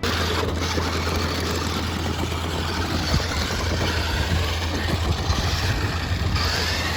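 Remote-control Hot Wheels Rhinomite monster truck driving, its electric drive motors and big rubber tyres running steadily together with the rumbling engine sound from its built-in speaker.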